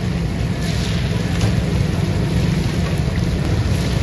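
Fish deep-frying in hot oil: a steady sizzle over a low, steady rumble.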